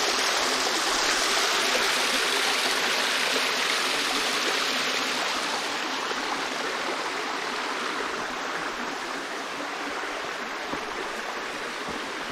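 Small rocky stream running over a little cascade into a pool, a steady splashing rush of water that slowly grows fainter over the second half.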